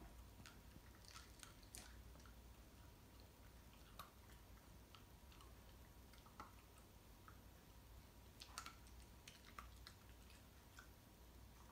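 Shiba Inu eating dry kibble spilled on the floor: faint, irregular crunches and clicks as it picks up and chews the pieces.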